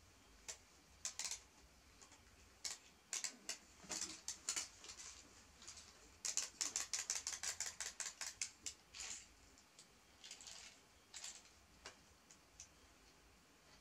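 Clockwork wind-up toy chicks clicking: scattered sharp clicks, with a fast even run of ticks, about seven a second, from about six to nine seconds in.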